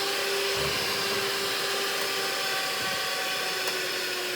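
Electric mixer motor running steadily while beating a sponge cake batter of eggs, sugar and flour, with a faint click near the end.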